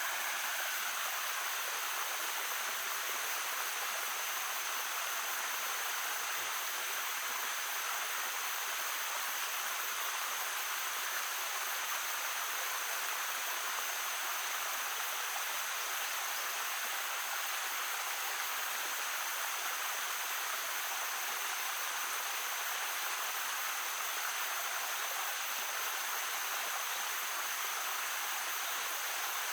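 Shallow stream babbling over stones, a steady even rush of water with no change in level.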